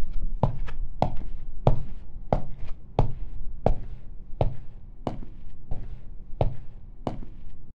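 A run of dull thuds or knocks, about two a second and unevenly spaced, over a low steady rumble; they cut off sharply near the end.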